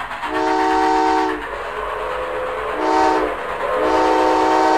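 Train whistle sounding three chord-like blasts, long, short, long, over the steady running noise of a train.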